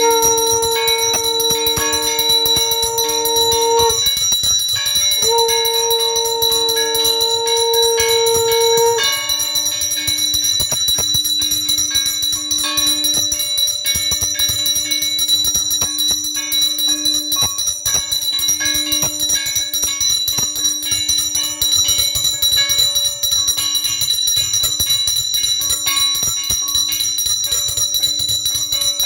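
A puja hand bell rung continuously in fast strokes, with a conch shell blown in two long, steady blasts during the first nine seconds. A lower held tone carries on underneath.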